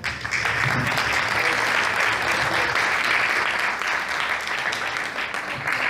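Audience applauding, breaking out suddenly and then holding steady.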